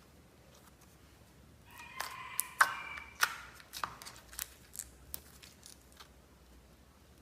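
Slime being squeezed and worked by hand, giving a run of sticky clicks and pops with a brief squeak near the start of the run, starting about two seconds in and thinning out by about six seconds.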